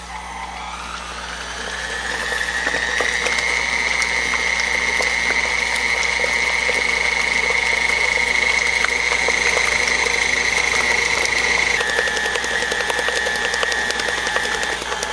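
KitchenAid tilt-head stand mixer running, its motor whining as the rubber-edged flex paddle beats thick cream cheese batter. The whine rises in pitch and loudness over the first few seconds as the mixer speeds up, holds steady, then steps down slightly in pitch about twelve seconds in.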